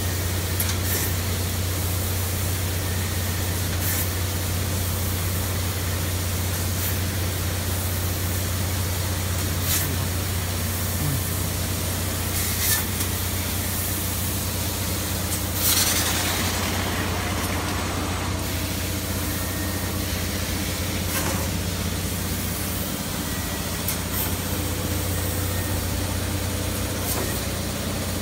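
750 W fiber laser cutting machine running while it cuts carbon steel sheet: a steady low hum with a hiss over it, broken by a few short sharp clicks, and a louder hiss of about two seconds around the middle.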